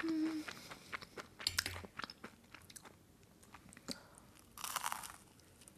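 Close-miked eating: a short hummed "mm" at the start, then small wet chewing clicks, and a louder crunchy bite a little before the end as another piece of dessert goes into the mouth.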